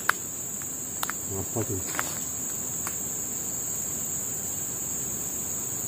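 Steady high-pitched insect chorus, with a few faint clicks in the first two seconds.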